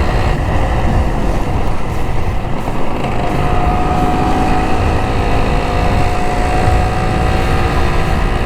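Honda LS125R's single-cylinder four-stroke engine running under way, with wind buffeting the microphone. The engine note firms up about three seconds in and rises slightly.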